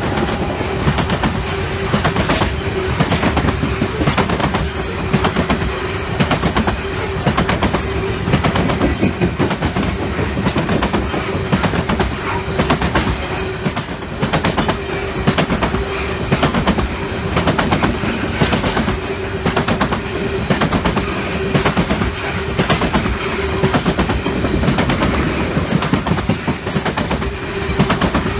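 Train cars rolling past, their wheels clacking over rail joints in a dense, uneven stream of clicks, with a steady tone held underneath.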